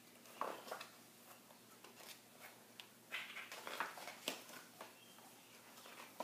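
Soft, scattered rustles and clicks of a picture book being handled and its pages turned, with a busier cluster about three to four seconds in.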